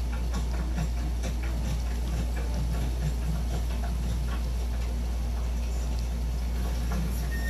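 Metal spoon stirring macaroni salad in a glass bowl: irregular light clicks and scrapes of the spoon against the glass, several a second, over a steady low hum.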